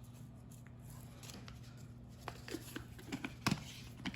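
A few light clicks and taps of a seasoning jar being handled and shaken over the casserole, over a steady low hum.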